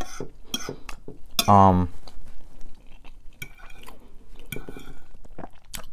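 A metal fork clinks and scrapes on a square ceramic plate as food is scooped up, in scattered short clicks. A brief voiced sound comes about a second and a half in.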